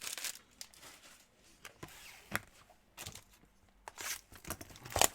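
Trading cards and their packaging being handled: scattered light clicks, taps and short rustles at irregular intervals.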